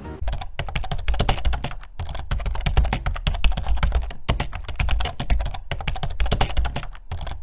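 Computer-keyboard typing sound effect: a fast, continuous run of key clicks, broken by a few short pauses.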